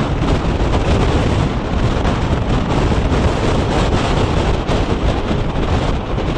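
Heavy wind buffeting the microphone held out of a fast-moving passenger train, over the train's steady running noise.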